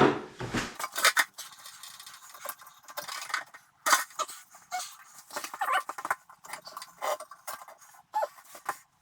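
Irregular light metallic clinks and knocks from a toilet's water supply line and its fittings being worked loose by hand and with tools.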